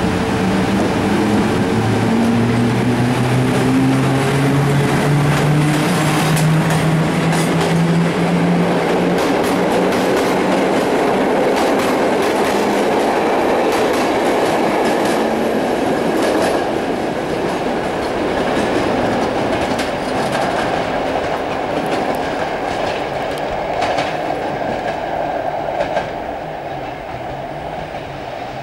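Electric-hauled passenger train pulling out. The locomotive's low hum rises steadily in pitch as it accelerates, then the coaches roll past with wheel clacks over rail joints. The sound eases off near the end as the train draws away.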